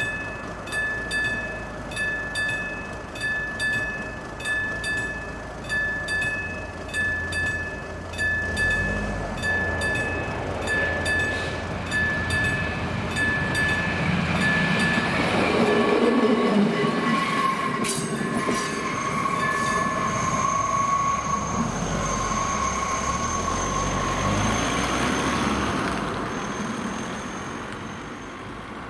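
Level-crossing warning bell on AŽD 71 signals ringing in an even repeated ding, about 1.7 strikes a second, stopping a little after the halfway point. A railcar passes over the crossing from about halfway through. The pass is a swelling rumble of wheels and engine with a steady high whine, which fades near the end.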